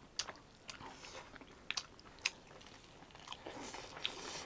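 Close-up mouth sounds of someone chewing a mouthful of rice and pork curry: scattered wet smacks and clicks.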